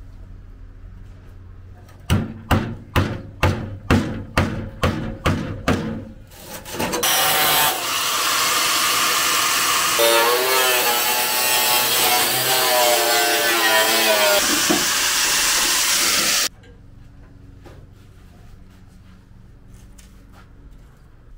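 About nine rasping hand-tool strokes, roughly two a second. Then a power tool runs loudly for about nine seconds, its pitch wavering under load, and cuts off suddenly.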